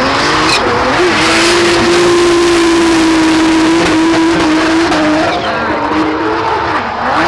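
Turbocharged BMW M54B30 straight-six held at high revs through a drift, with the tyres squealing. The engine note holds one pitch for several seconds, then drops and climbs again near the end.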